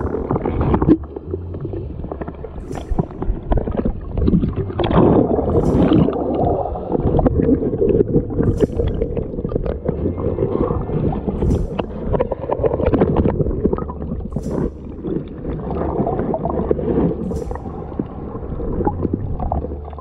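Muffled water sloshing and gurgling against a camera held underwater in shallow sea water, with a faint high tick about every three seconds.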